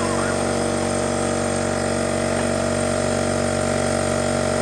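Portable air compressor motor running steadily, inflating the car's tires.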